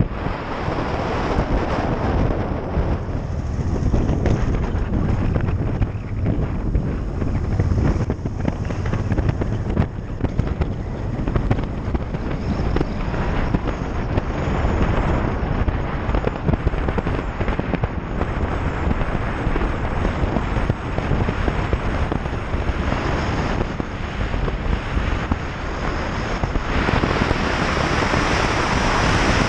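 Wind buffeting a helmet-mounted camera microphone on a moving motorcycle: a dense, crackling rush that covers the bike's own sound. It grows louder and brighter a few seconds before the end.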